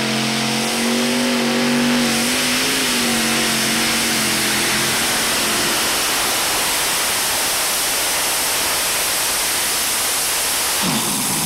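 Multi-engine V8 pulling tractor at full throttle, pulling the sled. Its engine note climbs a little at first, then gives way to a dense, loud roar. Near the end a different engine revs, dipping and then rising in pitch.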